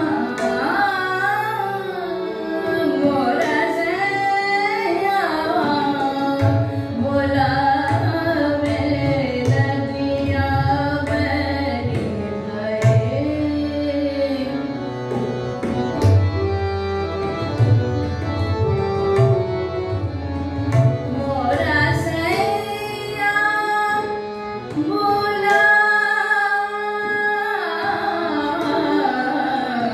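Hindustani thumri in Raag Mishra Desh: a woman sings long, ornamented, gliding phrases over a held harmonium accompaniment and tabla. The tabla's deep bass strokes come in about six seconds in and drop away around twenty-one seconds.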